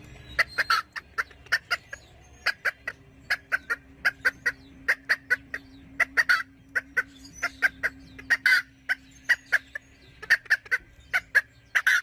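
Domestic fowl calling: a long run of short, sharp calls, several a second, some overlapping.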